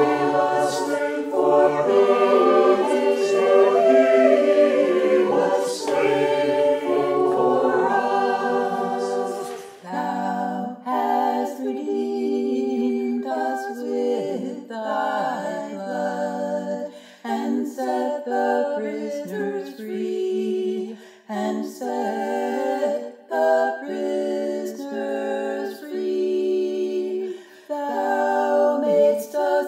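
A twenty-voice church choir singing a hymn a cappella in parts. About ten seconds in, the lowest voices drop out and the singing goes on in shorter, lighter phrases.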